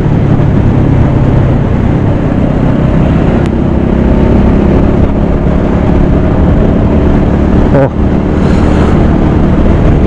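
Motorcycle engine running at road speed, heard from the rider's seat with wind rushing over the microphone. The engine note rises gently through the middle, with a brief dip in loudness about eight seconds in.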